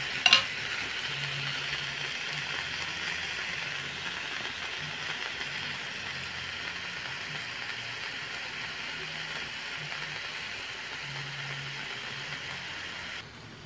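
Chicken breast pieces with onion, tomato and garlic sizzling steadily in a stainless steel pan, with a single sharp metallic click just after the start. The sizzle cuts off suddenly near the end.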